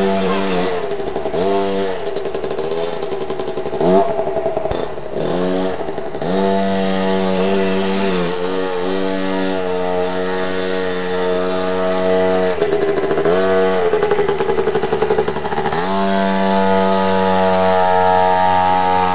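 Small minicross motorcycle engine revving as the bike rides the course. Its pitch drops and climbs again several times with the throttle, then holds a higher, steadier note and grows a little louder as the bike comes close near the end.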